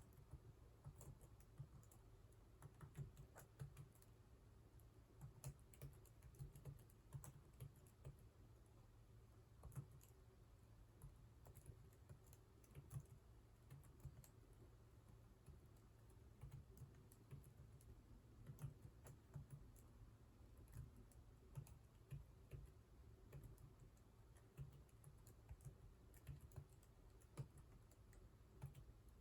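Faint keystrokes on a computer keyboard: steady, irregular typing.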